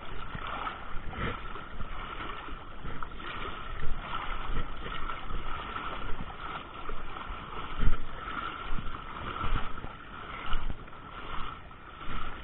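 Water sloshing and splashing from movement through a shallow river, with irregular knocks and bumps, the loudest about eight seconds in.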